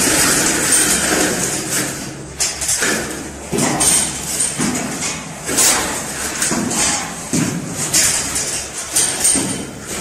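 Electrical wires being pulled through ceiling conduit, rubbing and scraping as they feed in. A continuous rush gives way after about two seconds to separate pull strokes roughly once a second.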